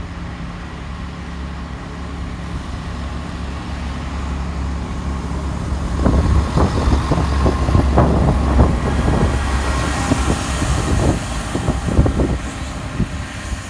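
Diesel multiple unit of the GWR Networker Turbo type running with a steady low engine drone as it approaches. About six seconds in, a rapid irregular clatter of wheels on the rails starts as the train passes close by.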